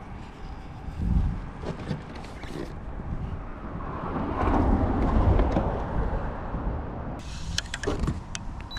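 Wind buffeting the microphone outdoors, rising and falling in gusts, with a few sharp clicks near the end.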